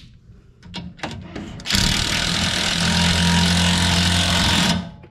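Cordless impact wrench running for about three seconds, spinning down the nut that fastens the steering center link to the Pitman arm, after a few light clicks of tools being handled.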